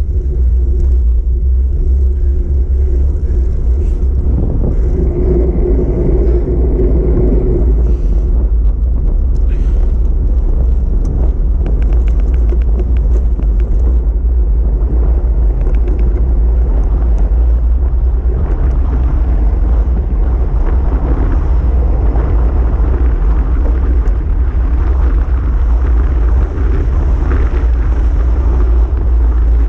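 Wind buffeting the microphone of a handlebar-mounted camera on a moving bicycle: a loud, steady low rumble.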